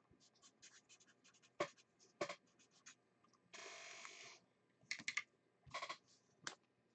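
Faint, scratchy strokes of a pen writing on paper, short and irregular, with one longer stroke about halfway through.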